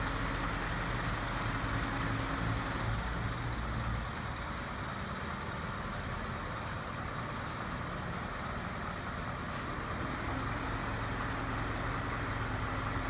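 Slide-on tow truck's engine idling, a steady low hum that eases off about four seconds in and picks back up near the end.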